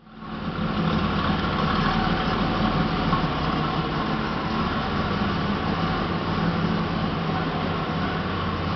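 1987 Buick Regal Grand National's turbocharged 3.8-litre V6 idling steadily. It swells in over the first second, then holds an even note with no revving.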